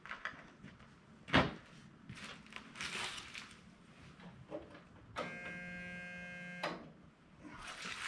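Footsteps, scuffs and rustling as someone climbs into a small skid steer's cab, with a sharp knock about a second and a half in. About five seconds in, a steady buzzing tone sounds for about a second and a half, then stops suddenly.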